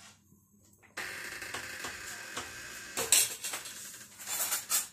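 Oil heating in a nonstick pan on a gas stove: a steady hiss with light crackling that starts suddenly about a second in, with a few sharper clinks and knocks in the second half.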